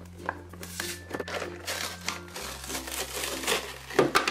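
Clear plastic blister pack being pulled off its cardboard backing, crinkling and crackling, with a few sharp cracks near the end.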